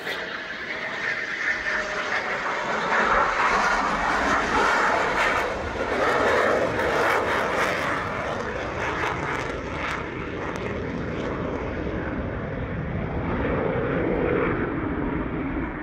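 Military jet aircraft flying past: a loud, steady rush of engine noise that builds over the first few seconds, is loudest for several seconds, then eases off slightly and swells again near the end.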